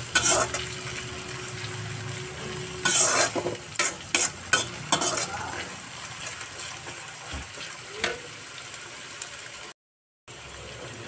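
Onions and peas sizzling in an iron kadhai over a gas flame, with a metal spoon scraping and stirring against the pan several times in the first half. The sound drops out completely for a moment near the end.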